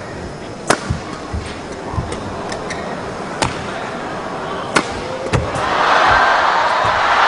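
Badminton rackets striking the shuttlecock in a fast rally: sharp cracks every second or so. From about five and a half seconds in, an arena crowd cheers, swelling loud and holding.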